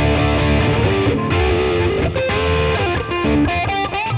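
Electric guitar through an OCD germanium clone overdrive pedal, distortion cranked with the guitar's volume knob rolled back up to full for the full overdriven sound. Thick, ringing distorted chords for about two seconds, then a single-note lead line with bends and vibrato.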